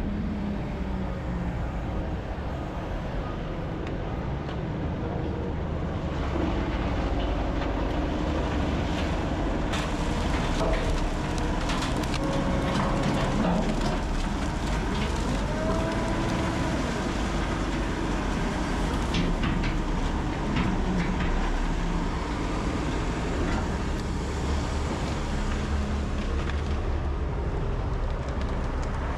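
Heavy equipment at work: a Rotochopper B66L wood grinder and a Hyundai wheel loader running steadily, with scattered knocks and clatter from about ten seconds in.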